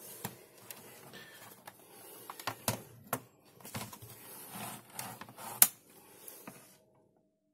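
Scattered clicks and knocks of a laptop being handled: its lid lifted open and the power leads with crocodile clips moved about, with one sharp click standing out near the end.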